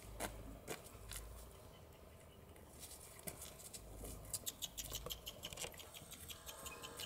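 Faint footsteps on asphalt: a Bernese mountain dog's paws and claws clicking as it gets up and walks, along with a person's shoes. The clicks come quickly and fairly evenly from about four seconds in.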